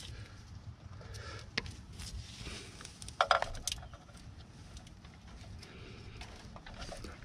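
Light clicks and rustling from a gloved hand handling a new position sensor on a 6.7 ISB Cummins diesel engine, with a small cluster of sharper clicks a little past three seconds in.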